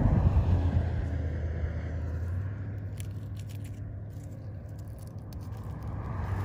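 Motor vehicle noise with a steady low hum. It is loudest at the start, fades through the middle and builds again near the end.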